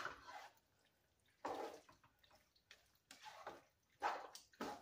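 A spoon stirring a chunky, wet mix of diced tomatoes with juice, black beans and corn in a soup pot: faint wet squelching strokes, about five of them.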